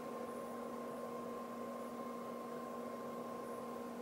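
Steady electrical hum with several constant tones over a faint hiss.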